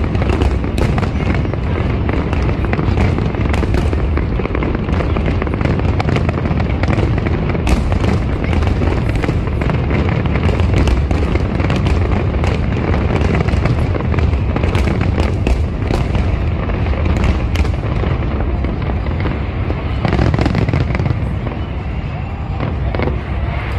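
Aerial fireworks bursting in a continuous barrage: a steady low rumble of booms with many sharp cracks and bangs throughout.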